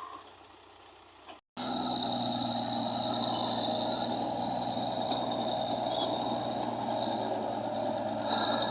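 A heavy vehicle's engine running steadily, with a constant high-pitched whine over it. It cuts in abruptly after a brief drop-out about a second and a half in.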